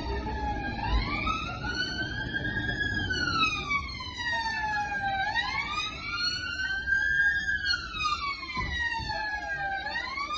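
Police siren in wail mode, rising and falling slowly and continuously, one full cycle about every four and a half seconds.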